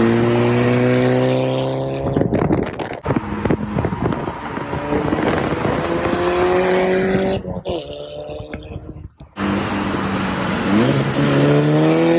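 Volkswagen Golf GTI's turbocharged four-cylinder engine and exhaust under acceleration: the note climbs in pitch, drops at each gear change (about two seconds in and again past the middle), and rises sharply once more near the end, over wind and road noise.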